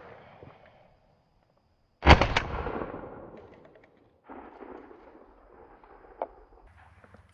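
A single loud shot from a Browning A5 shotgun about two seconds in; its report dies away over the next couple of seconds. After it comes a faint background with one small click.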